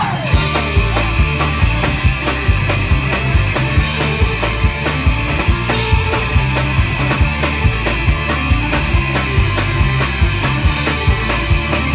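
Live folk-punk band playing loud and fast: fiddle over guitars, bass and a steady driving drum beat.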